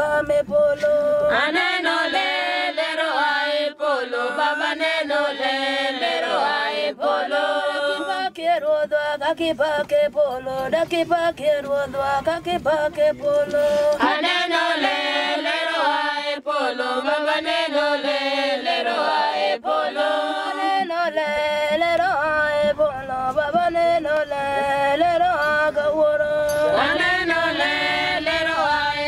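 A group of voices chanting a song together, several voices wavering over one another above a note held steadily beneath.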